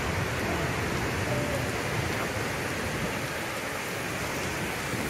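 Turpins Falls in high flow, a wide waterfall pouring over a rock wall into a foaming pool: a steady rush of falling water.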